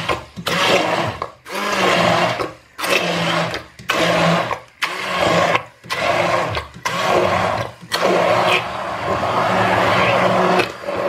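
Hand-held immersion blender motor whirring in short pulses of about a second each, switched on and off repeatedly, then running longer near the end. It is puréeing chunks of cooked sweet potato and leek in a stainless steel pot.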